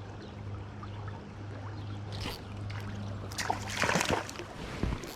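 Water splashing, briefly about two seconds in and louder for about a second near four seconds in, over a steady low hum.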